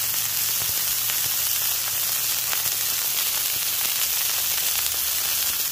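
Beef burger patties sizzling steadily on a hot flat-top griddle: an even, high hiss of frying fat with a few faint crackles.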